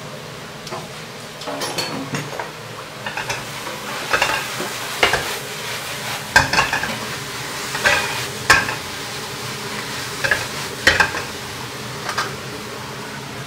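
Spatula scraping and knocking against a wok as French beans and minced pork are stir-fried, over a steady sizzle. The strokes start about a second and a half in and come irregularly, a few sharp knocks louder than the rest.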